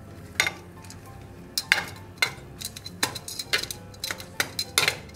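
Utensil clinking and scraping against a casserole dish as sausages are turned and the contents stirred: a series of irregular sharp clinks.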